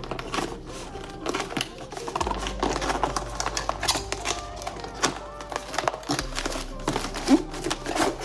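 Cardboard box being cut open with a knife and handled: a run of irregular scratches, clicks and taps, over background music with a low bass line.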